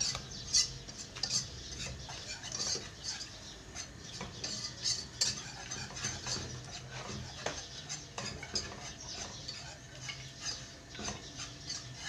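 Wire whisk scraping and clicking against the inside of a non-stick pot in quick, irregular strokes, stirring flour into melted ghee to make a thick roux.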